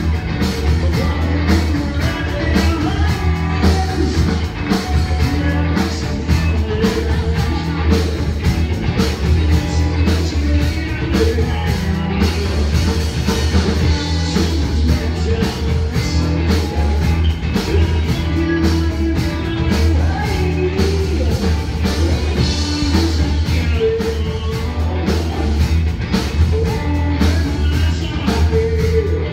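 Loud rock music with a singer, drums and guitar over a heavy bass, played at a dance party.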